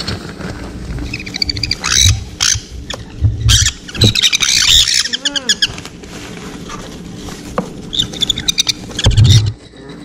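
Baby sun conures squawking in a plastic kennel carrier: harsh, high chick calls coming in several bursts, with a few low thumps in between.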